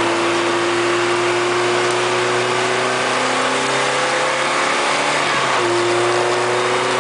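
Lotus Elise Sport 160's Rover K-series four-cylinder heard from inside the cabin, pulling steadily with its pitch slowly rising, then an upshift about five and a half seconds in drops the pitch before it climbs again. The car is being short-shifted on a wet track, with a steady hiss of tyre spray underneath.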